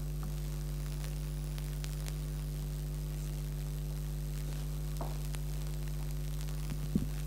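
Steady electrical mains hum in the sound system, with a few faint clicks about five seconds in and just before the end.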